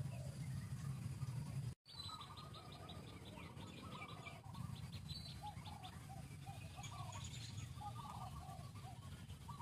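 Animal chirping calls. A fast, even run of high chirps lasts about three seconds, alongside many short repeated lower calls. A steady low hum fills the first two seconds, then the sound drops out for a moment.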